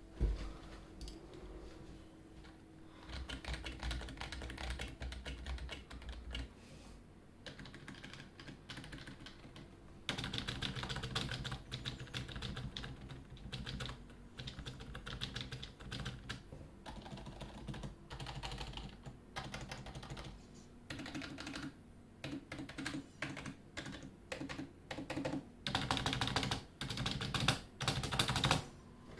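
Typing on a SteelSeries Apex 3 membrane gaming keyboard: fast runs of key presses in bursts with short pauses between them, the loudest stretches coming near the end.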